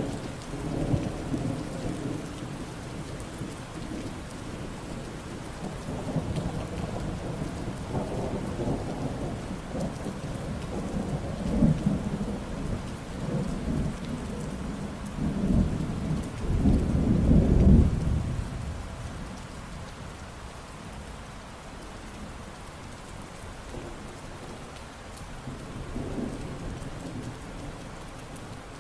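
Steady rain falling, with thunder rumbling through it. The loudest rumble swells about sixteen seconds in and fades out a couple of seconds later, leaving the rain with a fainter rumble near the end.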